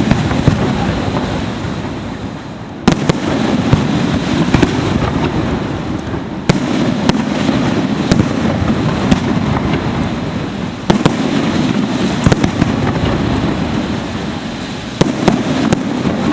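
Aerial firework shells bursting overhead in a dense, continuous barrage of crackle and bangs, with sharp loud reports every second or so and the heaviest few seconds apart.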